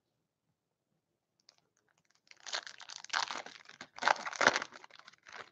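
A foil hockey card pack being torn open and crinkled in the hands. The crackling starts about halfway through and comes in two louder spells.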